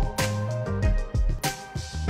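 Background music: a song with drums hitting a steady beat under sustained pitched instruments.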